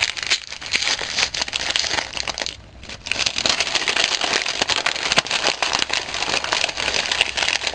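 Packaging crinkling and rustling as a small wrapped package is handled and opened, a dense run of crackles with a brief lull about two and a half seconds in.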